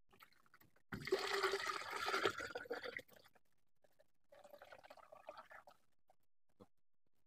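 Liquid poured from a basin through a metal mesh strainer into a plastic jug. It splashes loudly for about two seconds, then after a short break runs as a quieter, thinner pour.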